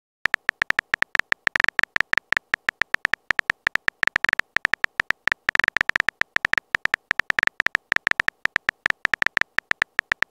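Phone-keyboard typing sound effect: a rapid, uneven run of short, high electronic beeps, one for each key tapped as a chat message is typed out.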